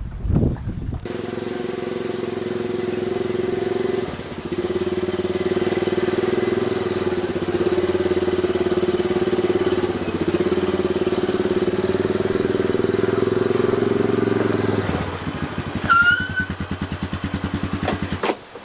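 New Honda 90 four-stroke outboard motor running steadily under way, then dropping to a slower, even throb about three seconds before the end. A short high chirp sounds over it near the end.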